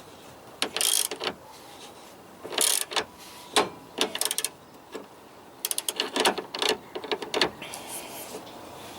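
Socket ratchet wrench clicking in short bursts of strokes, tightening the nyloc nut on a suspension arm bolt, with a quicker run of clicks about six seconds in.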